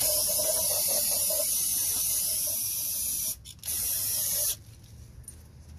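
Aerosol can of brake cleaner spraying onto the transmission oil cooler line fittings, washing them down to check for leaks. One long spray of about three seconds, a brief break, then a second, shorter spray of about a second.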